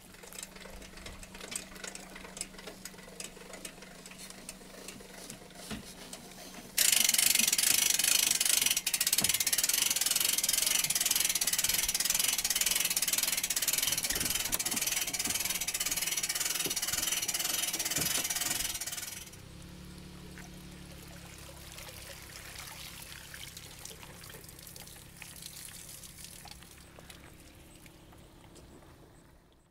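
Rushing river water: a loud, even hiss that starts suddenly about seven seconds in and falls away about twelve seconds later. Before and after it, quieter water with light clicks and a low steady hum.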